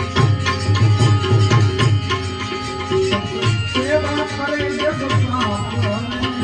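Devotional bhajan music: a hand drum beating a steady, even rhythm under sustained held melody notes.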